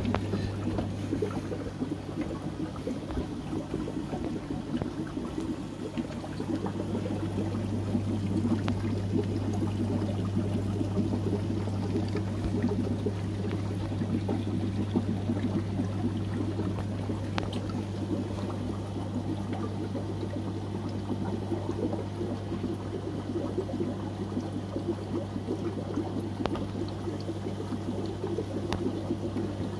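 Aquarium water trickling and bubbling steadily, over a low steady hum.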